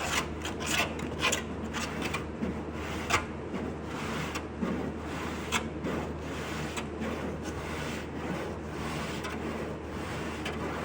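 A hand file scraping in irregular strokes across partly hardened body filler, shaving it down to shape a car door's lower panel. A steady low hum runs underneath.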